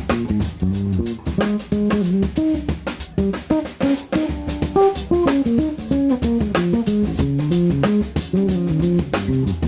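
Live jazz-funk trio of electric guitar, electric bass and drum kit playing: the guitar runs a busy single-note melody line over a walking bass and steady drums.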